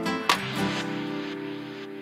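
Background music: a strummed guitar chord a moment in, left ringing and slowly fading away.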